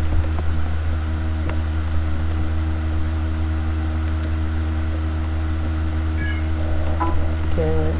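Steady low electrical hum made of several pitched lines, the constant background noise of the recording, with a few faint knocks. Near the end comes a brief wavering pitched sound.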